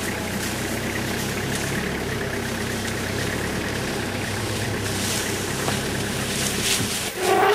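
A vehicle engine idling steadily. Near the end the engine sound stops abruptly and a louder, higher pitched sound begins.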